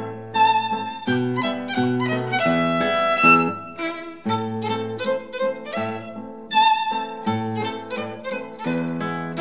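Instrumental background music: a melody over held low notes.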